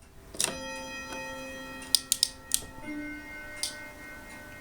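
Steady tone with overtones coming from a small AM radio receiver while the homemade tube oscillator's tuning capacitor is changed. The tone steps up in pitch about three seconds in, and several sharp clicks sound over it.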